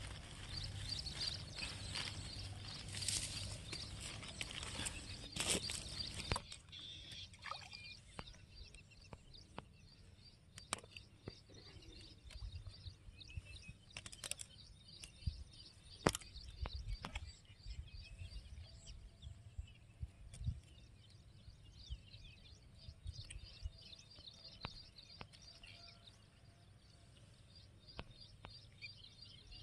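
Faint birds chirping steadily. Over the first six seconds a plastic bag rustles as it is handled, after which there are only scattered small clicks and taps.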